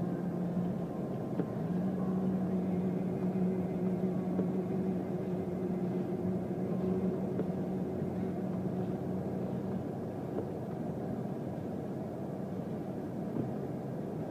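A vehicle engine running with a steady hum over a rumbling noise; the hum fades about ten seconds in and the rumble carries on.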